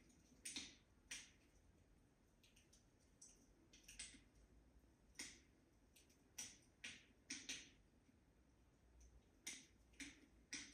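Wood fire crackling in a fireplace: faint, sharp pops and snaps at irregular intervals, roughly one a second.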